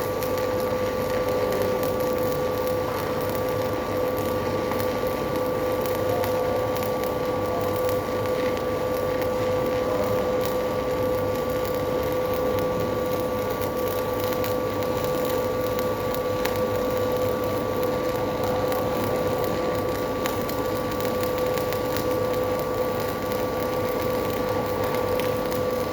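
Electric arc welding on a steel sewage discharge pipe: a continuous crackling hiss from the arc over a steady machine hum with a constant tone.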